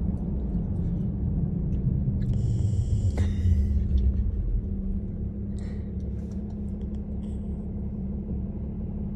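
Steady low road rumble inside a moving car's cabin, swelling slightly a few seconds in.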